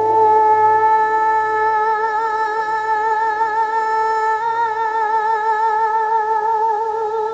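End-credits music: a wordless voice holding one long note, with a wavering vibrato setting in about halfway through and fading near the end.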